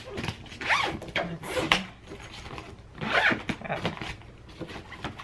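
Zipper on a padded fabric carrying case being pulled open in several short rasping strokes.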